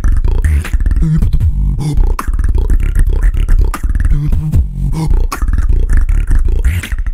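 Beatboxing: a beatboxer's heavy vocal bass and sharp mouth clicks in a tight rhythm, with short hummed low notes in between.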